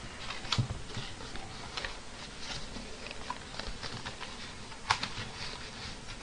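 Scattered clicks, taps and rustles of disposable takeout food containers and bowls being handled on a table, with a sharper knock about half a second in and the loudest click near five seconds in.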